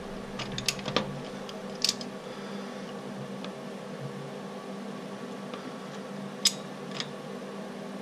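A few light metallic clicks and taps as a wrench and rocker arm are handled on a Ford 289 V8's cylinder head while the valve lash is adjusted, over a steady fan-like hum.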